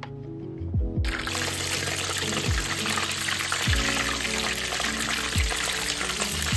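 Background music with a steady beat and deep bass, over a steady watery hiss that starts suddenly about a second in.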